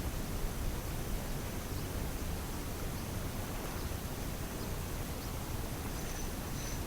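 Steady outdoor background noise: an even hiss over a low rumble, with a faint high-pitched tone briefly near the end.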